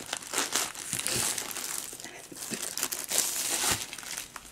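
Clear plastic bag crinkling and rustling in irregular bursts as a rolled diamond-painting canvas is worked out of it by hand.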